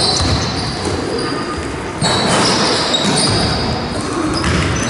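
Basketball game play in a large sports hall: a ball dribbled on the wooden floor amid players' running footsteps and short, high shoe squeaks, echoing in the hall.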